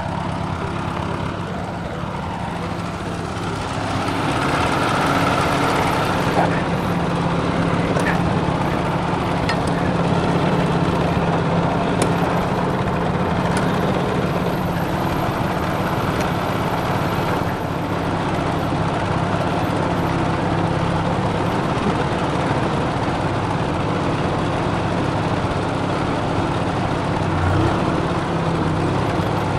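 Small vintage farm tractor engine running steadily, picking up in loudness about four seconds in as the tractor gets under way and drives off.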